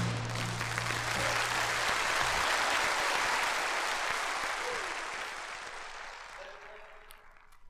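Audience applauding at the end of a live folk song, over the band's last held chord, which stops about two seconds in; the applause then fades out toward the end.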